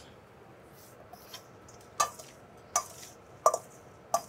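A metal spoon stirring seasoned raw shrimp in a stainless-steel mixing bowl. It clinks sharply against the bowl four times from about two seconds in, roughly once every three-quarters of a second, each clink ringing briefly.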